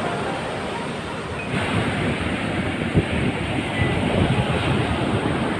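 Sea surf with wind buffeting the microphone: a steady rushing noise with a rumbling low end. It grows fuller about a second and a half in.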